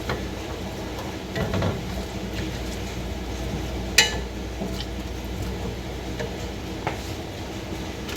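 Chopped onions and carrots sizzling in hot coconut oil in a large pan while a spoon stirs and scrapes them, with one sharp clink of the utensil against the pan about four seconds in.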